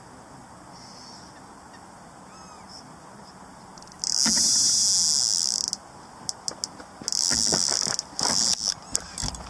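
Carp bite alarm and free-spooling reel going off as a fish takes line on the left-hand rod, a run: a loud high buzz starts suddenly about four seconds in and lasts under two seconds, comes back for about a second, then breaks into short stutters and clicks near the end.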